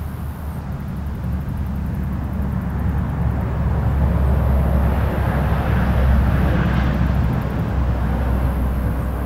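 Distant engine rumble, swelling over the middle few seconds and then easing off.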